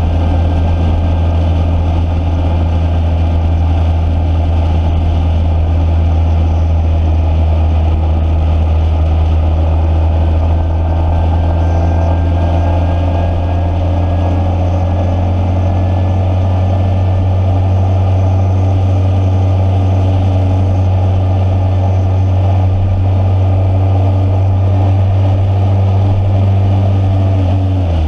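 A vehicle engine running at a steady speed: a constant, loud low drone that holds the same pitch throughout.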